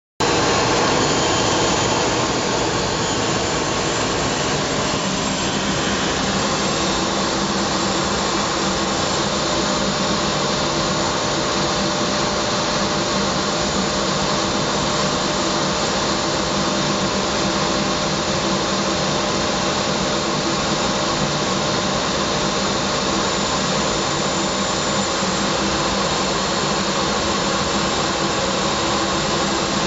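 Steady noise inside a military jet's cockpit in flight, engine and rushing air, with a few faint steady tones in it; it starts abruptly and then holds level.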